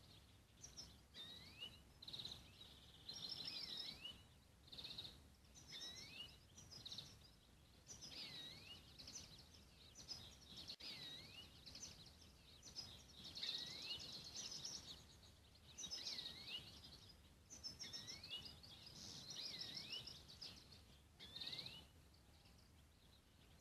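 Finches singing faintly: repeated short phrases of chirps and trills with quick sliding notes, one phrase every second or two.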